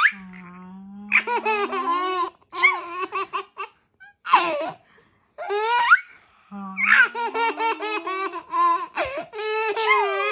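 A baby laughing in loud, high-pitched bursts at a woman's fake sneezes. Twice, a quieter drawn-out rising wind-up from the woman, about a second and a half long, leads into a fresh round of the baby's laughter.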